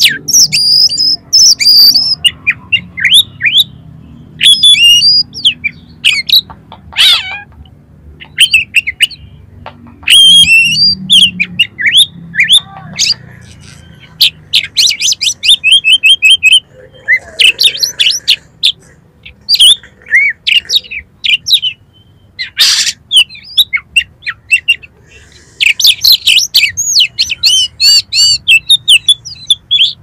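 Oriental magpie-robin (kacer) in full song: a loud, varied run of sharp whistles, fast repeated chattering notes and harsh calls, in short phrases broken by brief pauses.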